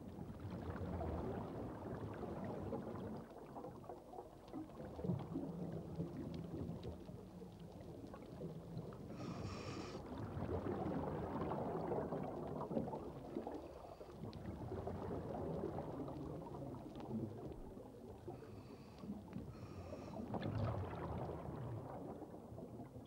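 Scuba diver's exhaled bubbles burbling through the water in surges that swell and fade about every four to five seconds.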